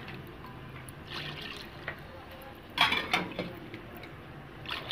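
Water being poured into a metal cooking pot of chickpea curry, trickling and splashing, with a few sharp metal clanks, the loudest about three seconds in.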